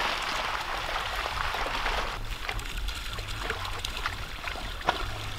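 Tambaqui thrashing and splashing in a seine net as it is drawn through shallow pond water. About two seconds in the dense splashing cuts off, leaving scattered smaller splashes and clicks, with one sharp click near the end.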